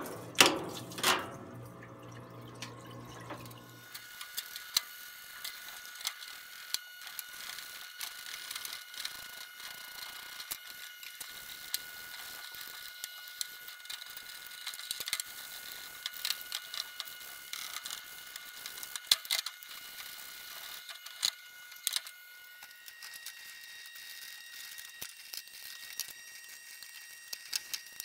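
Stiff brush scrubbing a cast-iron drill press head in a parts washer, with cleaning fluid trickling and scattered clicks and knocks as the part and brush are handled. A faint steady high whine runs underneath.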